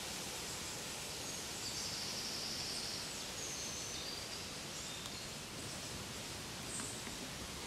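Steady outdoor ambient noise with a few high, thin bird calls between about one and a half and four seconds in.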